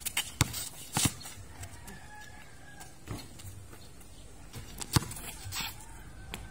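Basketball bouncing on a concrete court, with sneaker footsteps: a few sharp thuds spread out, the loudest about five seconds in.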